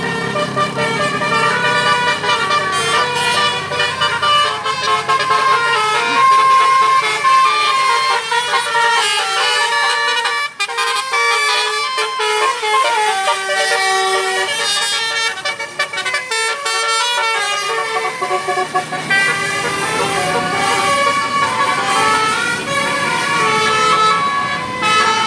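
A bus's Basuri telolet horn, a multi-tone musical air horn, playing a tune of quick stepped notes.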